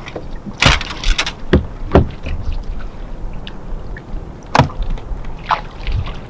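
Scattered knocks and clicks on a fishing boat, about eight in all, some sharp and some duller, from anglers moving and handling their gear on the deck, over a steady low rumble.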